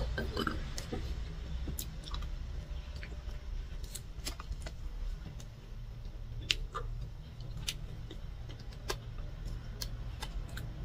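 Eating sounds: small scattered clicks from chewing soft chocolate cake and a metal spoon scooping and tapping the cake, over a low steady hum. One louder click comes right at the start.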